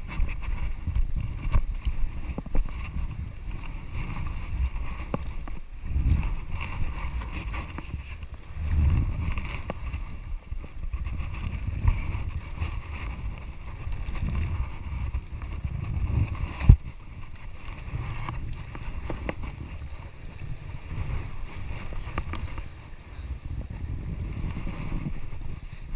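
Wind rumbling on the microphone while a fishing net is hauled by hand over the side of a small boat, with occasional light knocks and one sharp knock about two-thirds of the way through.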